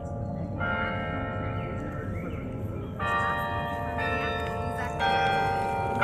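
Carillon of the Berlin Tiergarten, its bells played by hand from the keyboard, ringing out a slow tune. Single notes are struck about a second in and then roughly once a second from three seconds on, each ringing on and blending with the next, over a steady low rumble of background noise.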